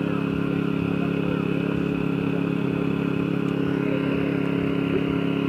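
An engine running steadily at a constant speed, an even, unchanging hum.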